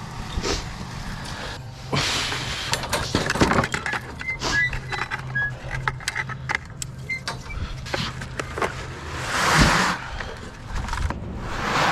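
Scattered knocks and clicks, with louder scraping or rustling bursts about two seconds in and near ten seconds in, over a steady low engine-like hum.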